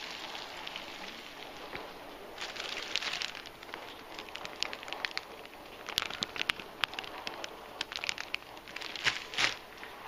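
Slices of bread frying in a skillet: a steady sizzle with sharp crackles and pops, the popping getting busier from about halfway through.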